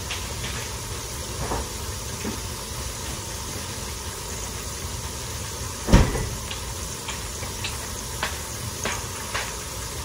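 Low-carb tortilla pieces frying in avocado oil in a pan: a steady sizzle with scattered small pops and crackles. One loud thump about six seconds in.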